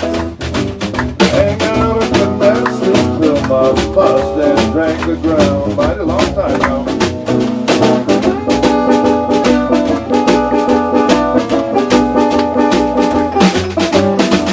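Live blues band playing an instrumental passage between verses, with guitar and drums keeping a steady beat and held melody notes over it.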